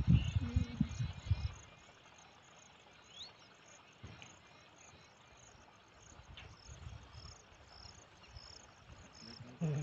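Faint insects chirping in the field, a high pulsing call repeating evenly several times a second.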